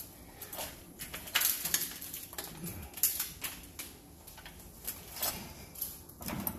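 Cloth rag rubbing and wiping across the sheet-metal top of a water heater, in short irregular strokes with scattered light knocks and rustles.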